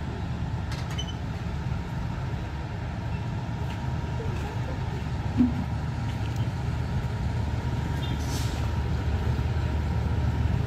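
A steady low engine rumble, with a short, sharp sound about five and a half seconds in.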